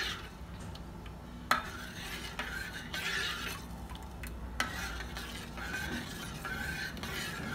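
Steel spoon stirring a milk, ghee and sugar mixture in a stainless steel saucepan to dissolve the sugar, with repeated swishing scrapes. The spoon clinks sharply against the pan about a second and a half in and again past halfway.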